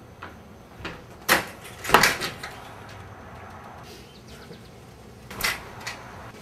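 Sharp knocks and clatters of a door, two loud ones close together early on and another near the end as an aluminium storm door is swung open.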